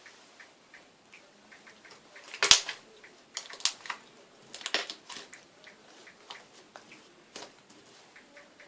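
Homemade slime being squeezed and pressed by hand, giving irregular sharp pops and crackles as air pockets burst. The loudest pop comes about two and a half seconds in.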